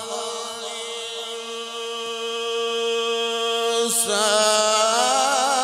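Male qari chanting Qur'an recitation in the melodic tajweed style, holding one long steady note. About four seconds in he breaks off briefly, then goes on with a wavering, ornamented phrase.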